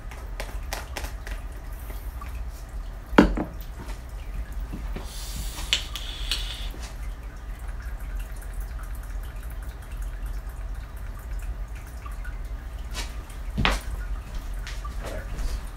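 Water dripping irregularly in a sink over a low steady hum, with a loud knock about three seconds in and another near the end.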